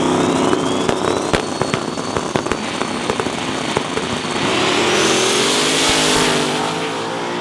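Drag race launch between a Mustang and a Corvette: engines revving at the line with sharp exhaust pops and crackles, then accelerating hard off the line with the engine pitch climbing. A thin high whine rises alongside and holds.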